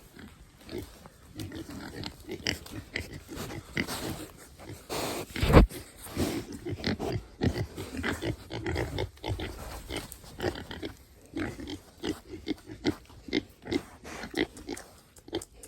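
Several pigs grunting in short, irregular bursts, with one loud thump about five and a half seconds in.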